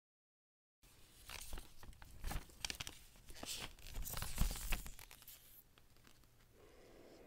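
Faint rustling, crinkling and small scrapes and clicks of an iPhone 11's cardboard retail box and its paper-wrapped accessories being handled, starting about a second in and dying away after about five seconds.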